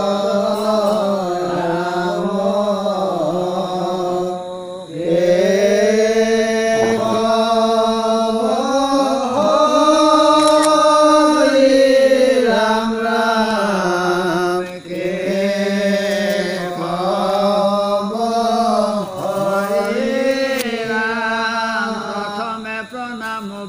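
A man's voice chanting Assamese devotional naam-prasanga verses in long, held, melodic phrases, with a short break for breath about five seconds in.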